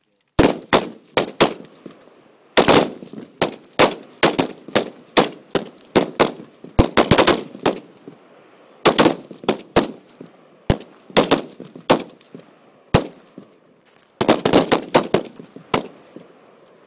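Gunfire from a line of Marines shooting at moving targets during a timed qualification stage. Many sharp shots crack out, often several close together or overlapping, with short echoes.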